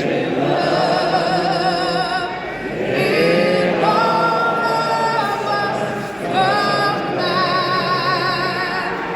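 A female soloist singing a national anthem slowly, on long held notes with vibrato, with many voices singing along.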